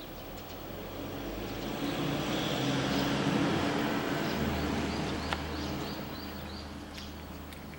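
A vehicle passing by, its engine and road noise swelling to a peak a few seconds in and then fading away, with small birds chirping.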